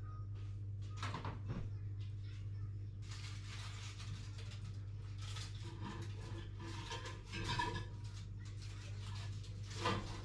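Things being moved about inside a kitchen cupboard: irregular light clattering and knocks, with a sharper knock near the end, over a steady low hum.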